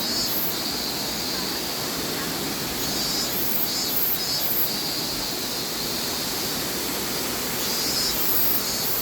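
Steady rushing of a waterfall in a river gorge, with a higher hiss that swells and fades every second or so.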